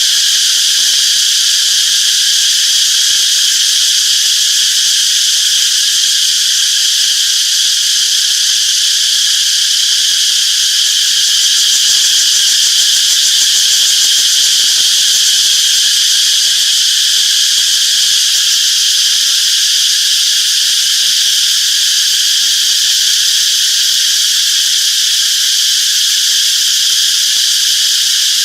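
Chorus of cicadas buzzing: a continuous, loud, high-pitched drone with no breaks or changes.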